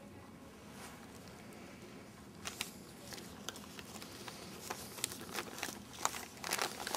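Small clear plastic evidence bag crinkling and rustling as gloved hands put an item into it. Scattered small crackles and clicks start about two and a half seconds in and come more often toward the end.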